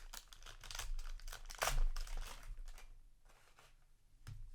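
Trading-card booster pack wrapper crinkling and being torn open, with a burst of crackling about two seconds in that dies down to a few scattered crinkles.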